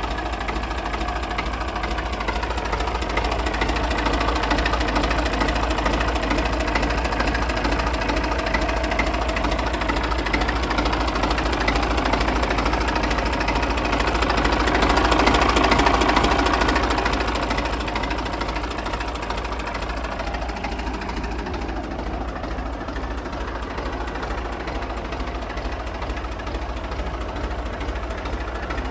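Fordson Dexta tractor's three-cylinder diesel engine idling steadily, loudest about halfway through.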